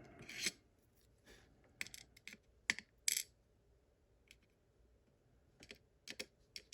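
Light, scattered clicks and taps of small metal lock parts, the pins and core of a Yale KM1 lock being handled during disassembly, coming in a few small clusters with a quiet spell between.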